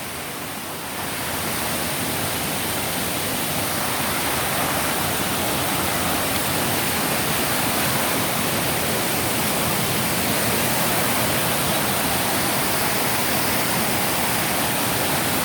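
A waterfall's falling water rushing steadily, a little louder from about a second in.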